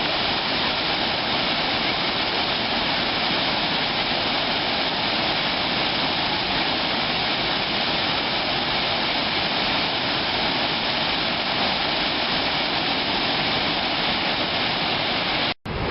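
Steady, loud roar of a large waterfall, a constant rush of falling water with no change throughout.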